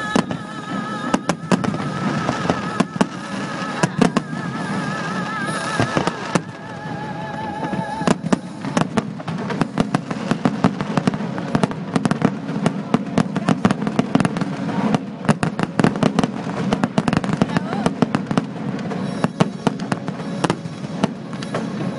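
Fireworks going off in quick succession, sharp bangs and crackles that come thick and fast from about a third of the way in. Music with a wavering held melody plays under the first part.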